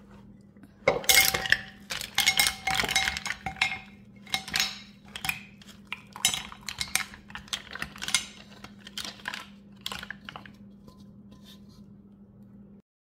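Steamed mussels tipped from a pot into a ceramic bowl, their shells clattering against each other and the bowl. The clatter is densest over the first few seconds, then thins to scattered clicks and stops well before the end.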